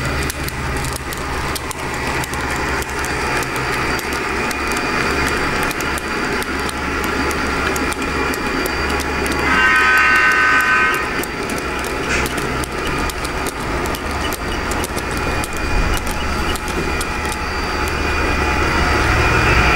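Long N scale model train of passenger and freight cars rolling by, its wheels clicking over the track over a steady low hum. About ten seconds in, the EMD F45's DCC sound decoder sounds the diesel horn for about a second and a half.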